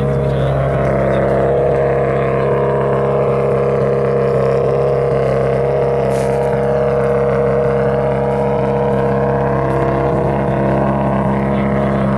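2015 Subaru WRX STI rally car's turbocharged flat-four engine idling steadily, heard at its exhaust.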